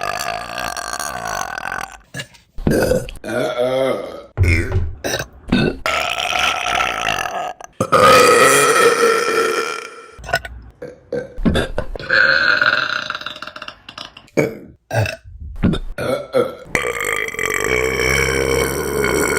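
Loud, drawn-out belches from different women, one after another, about eight in all, each a long pitched burp that ends abruptly where the next clip begins.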